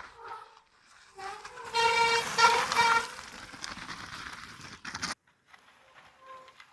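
Mountain bike disc brakes squealing: a loud, high squeal in several pulses about two to three seconds in, over rushing trail noise that cuts off suddenly about five seconds in, with a fainter squeal near the end.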